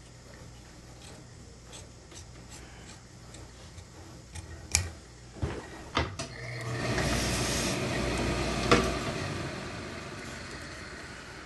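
Wool suiting cloth handled on a cutting table: faint snips of tailor's shears at first, a few sharp clicks as the shears are put down, then a loud rub lasting about three seconds as a hand smooths and drags the cloth across the table.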